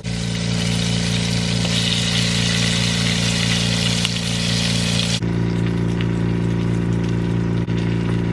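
Frog legs frying in very hot oil: a loud, dense sizzle over a steady low hum. The sizzle drops away abruptly about five seconds in, while the hum keeps on.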